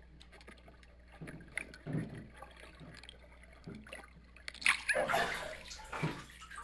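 Muffled water movement around a waterproof camera held underwater in a swimming pool, then louder splashing and sloshing from about four and a half seconds in as the camera comes up out of the water.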